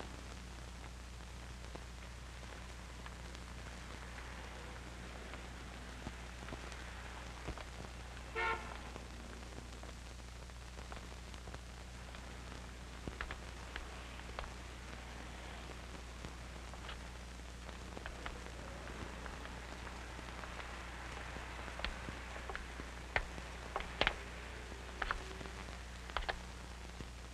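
Quiet soundtrack of an old film transfer: a steady electrical hum and hiss with scattered faint clicks, and a short pitched toot about eight and a half seconds in.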